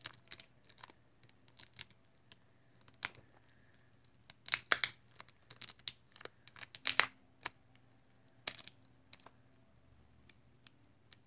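The seal on a small plastic slime container being picked at and peeled off by hand. Short crinkling, tearing crackles come at irregular intervals, with quiet gaps between them.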